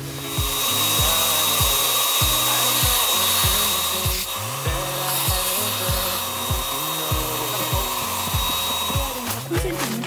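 Small electric air pump running steadily with a rushing hiss of air and a thin whine, cutting off near the end, as it inflates an air mattress. Background music with a steady beat plays underneath.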